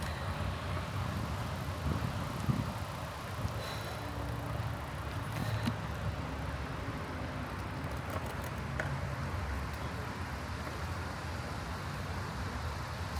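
Wind rumbling on the microphone over the tyre and road noise of a moving bicycle, with a few faint clicks and rattles.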